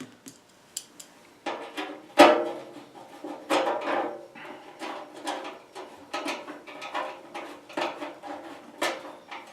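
Irregular clinks, clicks and knocks of metal tools and furnace parts being handled during reassembly, some with a short metallic ring; the loudest knock comes about two seconds in.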